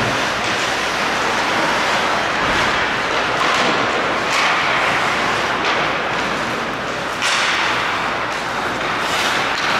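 Ice hockey play in a rink: a steady hiss of skates cutting the ice and arena noise, with several sharp knocks of sticks and puck, the loudest about seven seconds in.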